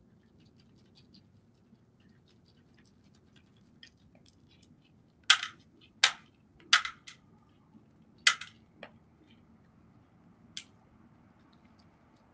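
White-tailed deer feeding at a bowl: faint crunching ticks throughout, with a cluster of loud sharp clacks in the middle, four big ones within about three seconds, followed by a few fainter ones.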